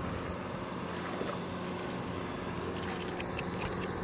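Tractor engine running with a steady, even drone.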